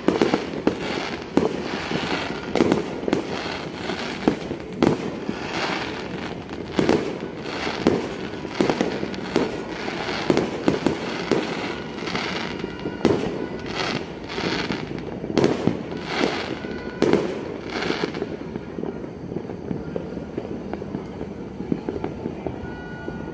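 Many fireworks going off at once: a dense run of overlapping bangs and crackles from aerial shells, thinning out after about eighteen seconds.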